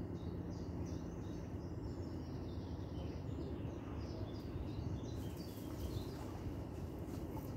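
Small birds chirping in quick repeated notes over a steady low background rumble. The chirping stops about five seconds in, leaving a few faint clicks.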